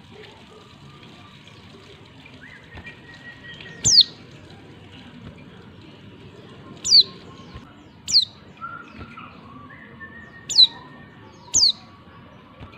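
Female white-eye (pleci) giving five short, sharp, high calls, each sweeping quickly down in pitch, spaced irregularly one to three seconds apart. It is the female's call used to provoke male white-eyes into answering and singing.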